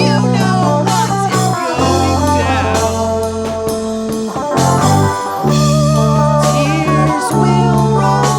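Instrumental stretch of a blues-tinged rock song: a guitar plays a lead line of bent, wavering notes over sustained bass notes.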